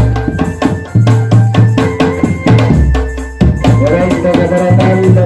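Drum band playing: loud, regular bass drum and snare drum beats, with a wavering melody line over them from about the middle on.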